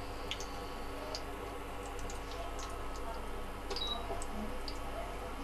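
Cumin seeds frying in hot ghee, giving off scattered small ticks and pops over a steady low hum.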